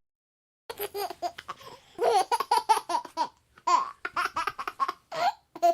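Baby laughing in quick runs of short, rapid giggles, with brief pauses between the runs, starting a little under a second in.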